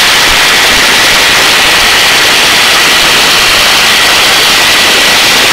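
Hovering helicopter heard from the open cabin door: a loud, steady rush of rotor wash and engine noise with a thin, steady high whine running through it.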